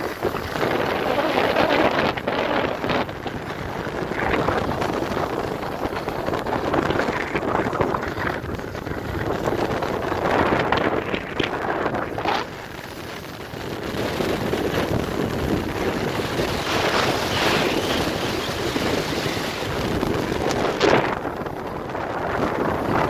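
Wind buffeting the phone's microphone: a loud rushing roar that gusts up and down, easing briefly about halfway through.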